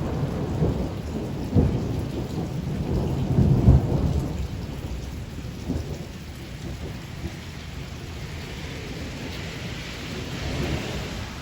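Steady rain shower with thunder rumbling low, heaviest in the first few seconds and then dying away under the rain. There is a brief swell of higher hiss near the end.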